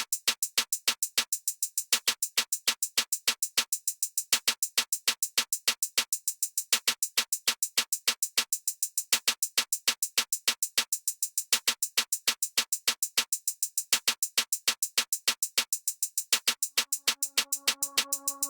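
Electronic music: a drum-machine beat of sharp, even ticks, about four or five a second, some with a soft low thump under them. A sustained synthesizer chord comes in near the end.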